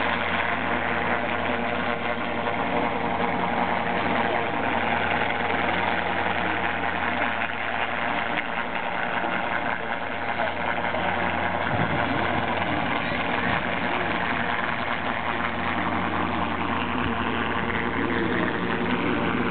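Engine running with a steady drone that holds the same pitch and level throughout.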